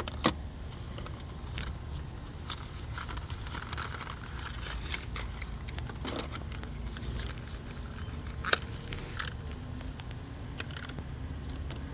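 Scattered light clicks and scrapes of spark plug hand tools and parts being handled, with two sharper clicks, one right at the start and one about eight and a half seconds in, over a steady low background rumble.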